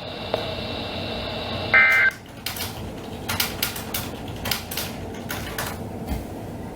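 A short burst of EAS digital data tones (the warbling SAME code) from a weather radio broadcast, about two seconds in, over a steady hiss. After it comes irregular crackling clicks of radio static.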